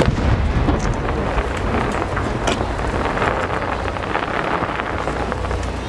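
An aerial firework shell bursts with one sharp, loud bang, followed by a steady wash of background noise with a few faint pops.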